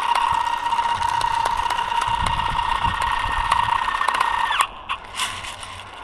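An airsoft electric gun's gearbox motor runs as a long full-auto burst: a steady whine with a rattle of clicks that cuts off suddenly about four and a half seconds in.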